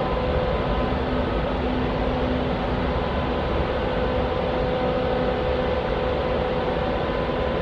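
Diesel locomotives of a BNSF freight train running steadily: a constant engine hum over a loud rumble, with no change in pitch.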